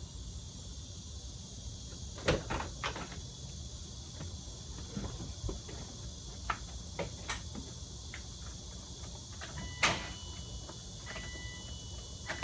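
A series of scattered short clicks and knocks over a low steady hum, the loudest about two seconds in and again near ten seconds. A faint thin tone sounds from about ten seconds in.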